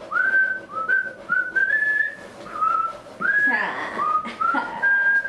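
Someone whistling a tune in a string of short notes, each sliding up into its pitch, with a brief rush of noise about three and a half seconds in.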